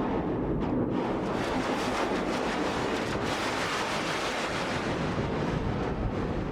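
Eurorack modular synthesizer patch run through an Endorphin.es Ghost effects module, giving a dense, noisy wash like surf or wind. It grows brighter from about two seconds in and darkens again near the end.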